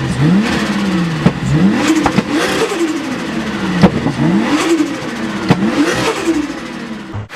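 Turbocharged car engine being revved over and over in quick blips, about one a second, its pitch rising and falling each time. Sharp short bursts come as the revs drop, the turbo flutter of compressor surge on throttle lift.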